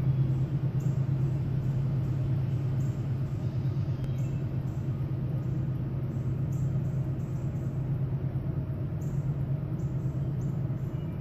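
Machinery running steadily nearby: a constant low rumble with a hum at one steady pitch.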